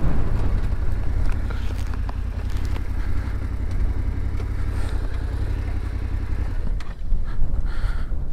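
Yamaha adventure motorcycle's engine running with a steady low rumble as the bike slows and pulls over to a stop, with a few light clicks.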